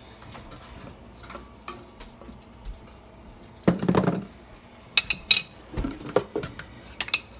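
A metal saucepan clunking down on a gas stove's grate about four seconds in, followed by a run of sharp metallic clinks and taps, some of them ringing briefly.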